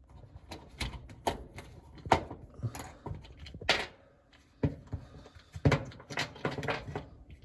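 Irregular sharp clicks and knocks of hard plastic parts being handled and set down while washing machine agitator dogs are worked on, about a dozen taps with the loudest about two, four and six seconds in.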